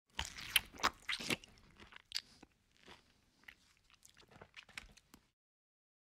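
Crisp bites and chewing of a ripe pink-fleshed guava. A quick run of crunches comes first and is the loudest, then sparser, quieter chewing stops about five seconds in.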